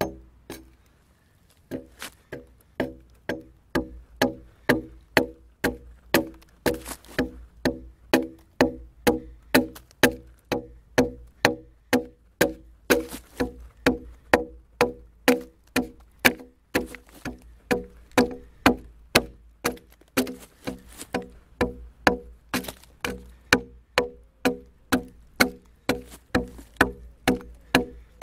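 Axe strikes biting into a log being hewn into a beam, a steady run of sharp knocks about two a second, each with a short wooden ring. There is a brief pause about half a second in before the strokes resume.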